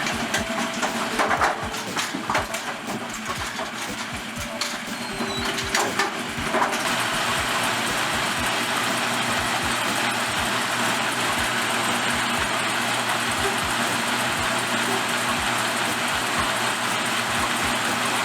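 Brunswick A2 pinsetter's ball accelerator running on its newly fitted long belt, switched on to check the belt's tracking. It makes an irregular clatter of knocks for about the first six seconds, then settles into a steady whir with a regular low thumping.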